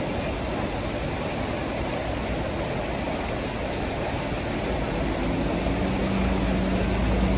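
Steady splash and patter of water dropping from a digital water-clock fountain, mixed with city street traffic. From about five seconds in, a large vehicle's engine hum comes in and grows a little louder.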